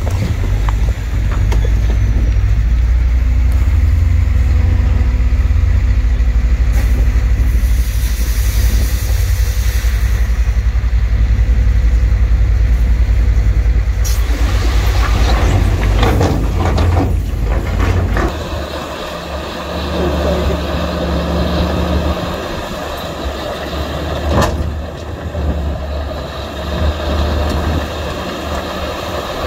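Heavy diesel earthmoving machinery, dump trucks and bulldozers, running at work with a deep steady rumble. There is a hiss around eight seconds in and a burst of rattling noise around fifteen seconds in. After that the engine note drops lower and lighter, with a single sharp clank near the end.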